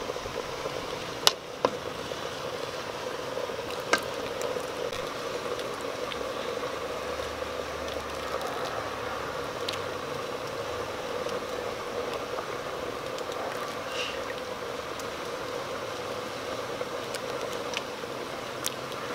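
Metal ladle clinking against a large aluminium pot as kolak is stirred and ladled out: three sharp clinks in the first four seconds, then a few faint ticks, over a steady background hiss.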